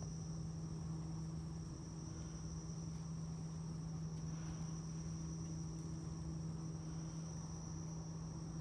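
Steady background noise: a constant low hum with a thin, unbroken high-pitched whine above it, and no distinct clicks or strokes.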